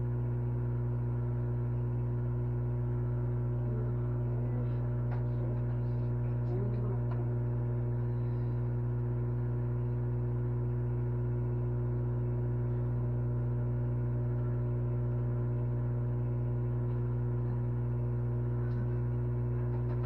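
Microwave oven running: a steady electrical hum with higher overtones, and a few faint clicks and knocks.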